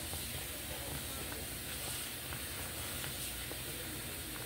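Pot of soup boiling on the stove: a steady hiss with faint bubbling pops, cutting in and out abruptly.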